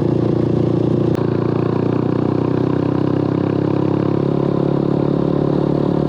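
Motorbike engine running while riding, with a steady hum that shifts slightly in pitch as the speed changes.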